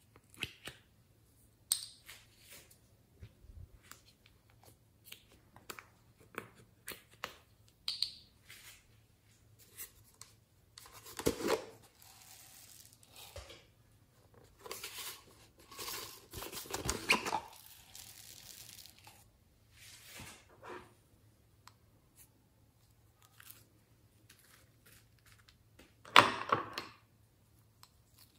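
Hands handling slime materials and containers over a glass tray: scattered light taps and clicks, with three louder rustling, crinkling bursts.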